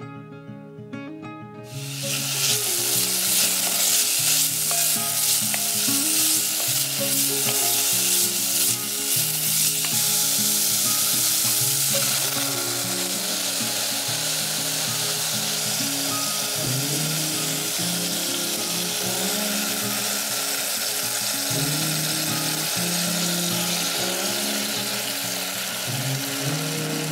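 Julienned burdock root sizzling in hot oil in a cast iron rice pot. The sizzle starts suddenly about two seconds in, is loudest for the next ten seconds or so, then settles to a steady sizzle.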